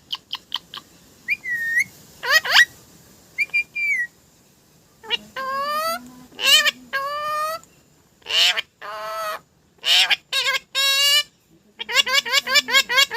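A bird calling: a few quick clicks, a couple of whistled, gliding notes, then a run of loud, rising calls.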